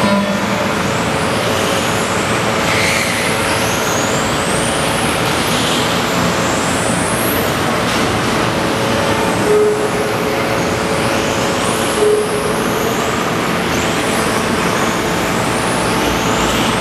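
Electric radio-controlled racing cars running on a track, their brushless motors giving short rising whines again and again as they accelerate, over a steady dense noise.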